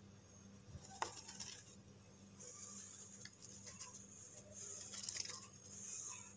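Wood-shaving bedding in a cardboard box rustling and crackling faintly as a hand moves through it and touches the chicks, with a sharp click about a second in and a steady low hum underneath.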